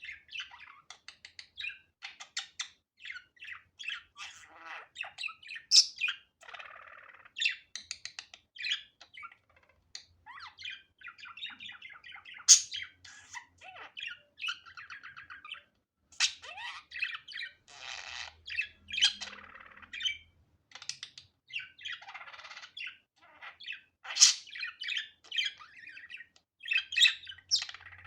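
Budgerigar warbling chatter: a continuous stream of rapid chirps, clicks and twittering, broken by a few sharp, loud calls.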